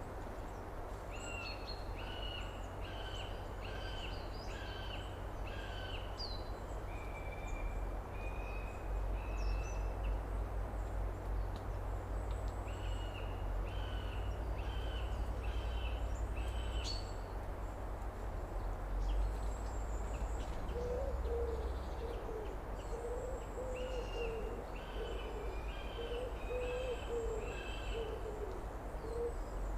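Outdoor summer ambience of bird calls: a bird repeats a short clear note in runs of about one and a half per second. From about two-thirds of the way in, a low hooting call repeats in a series over a steady low rumble.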